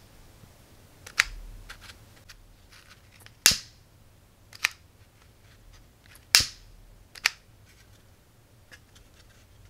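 Sharp clicks from the trigger of a 3D-printed lighter gun as it is pulled to light the lighter: five clicks spread over about six seconds, three of them louder.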